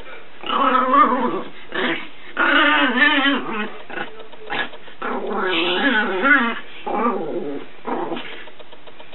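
Chihuahua puppy growling and whining in several bursts of about a second each, the pitch wobbling up and down.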